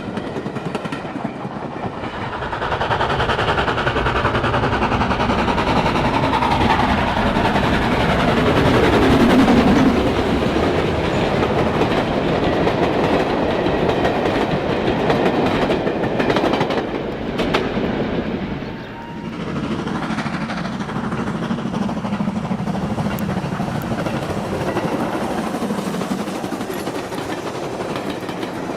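OO gauge model trains running on the layout, their wheels clattering over the rail joints with the hum of running gear. The sound is loudest about nine seconds in and drops briefly at about nineteen seconds.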